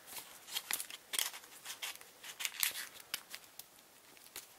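A deck of paper playing cards and its cardboard tuck box being handled: an irregular string of short crisp clicks and scrapes as the deck is slid back into the box.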